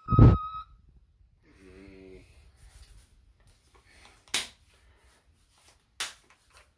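A man's whistle-register vocal exercise: a loud, high, thin whistle-like voice tone cuts off about half a second in, followed by a short low hum and wheezy breathing, with two sharp hissing breath bursts near four and six seconds in.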